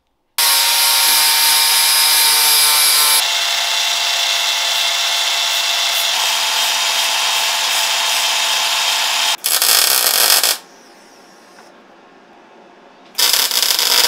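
Metal-fabrication power tools in quick succession. A power tool runs steadily for about three seconds. Then an electric belt file sands the end of a steel tube for about six seconds, followed by another short burst of tool noise. Near the end a MIG welder crackles for about two seconds.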